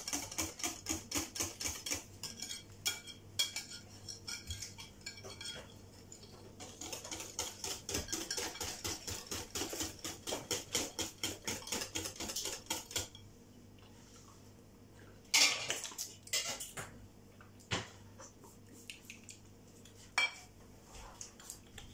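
A metal whisk beating crêpe batter in a bowl, clicking against the bowl's side at about three strokes a second. It pauses once, stops about 13 seconds in, and is followed by a few single knocks.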